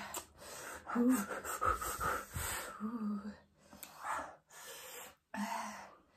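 Heavy, wheezing breaths and gasps in short bursts, with brief vocal noises between them, from people reacting to the burn of spicy ramen.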